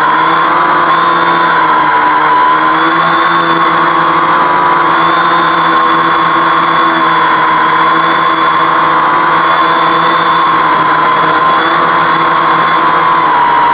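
Brushless motors and propellers of a homemade quadcopter whining in a steady hover, the pitch wavering slightly as the flight controller holds position in the breeze.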